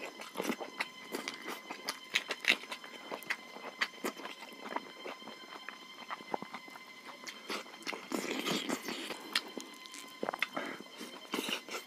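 Close-miked chewing of rice and pork, with wet mouth clicks and small crunches scattered irregularly throughout, and a couple of longer noisier stretches about eight and eleven seconds in.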